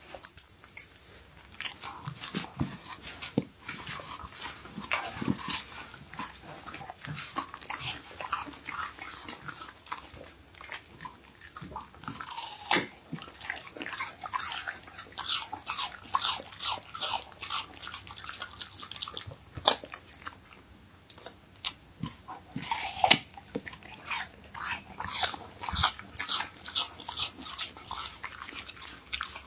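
A Siberian Husky crunching and chewing apple, with wet, irregular crunchy bites throughout.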